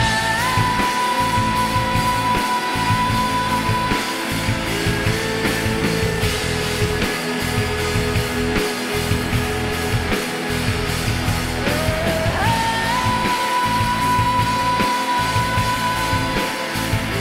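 Background music: a song with long held melody notes, each reached by an upward slide, once at the start and again about twelve seconds in, over a steady accompaniment.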